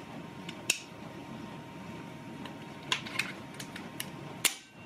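Safety catch of an AEA Challenger .50 PCP bullpup air rifle being worked back and forth: a series of sharp metallic clicks, the loudest about four and a half seconds in, which is quite a racket.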